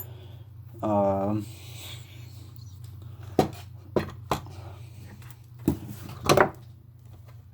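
Small hard parts being handled: a few sharp separate clicks and knocks, with a short wordless voice sound about a second in and a steady low hum underneath.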